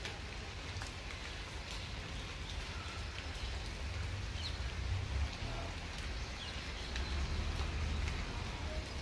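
Steady outdoor hiss with a low rumble underneath and scattered faint clicks, and no voices.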